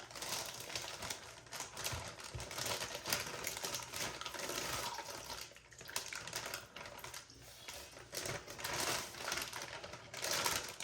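Plastic zip bag rustling and crinkling as it is handled, with dense, irregular crackles that dip quieter for a moment about halfway through.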